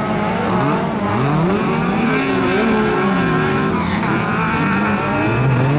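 Several small hatchback autocross cars racing on a dirt track, their engines revving up and down, with several pitches rising and falling over one another.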